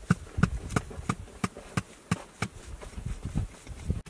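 Paintbrush bristles sweeping grit and dirt off fossil bone in a rock bed: a regular run of short scratchy ticks, about three strokes a second.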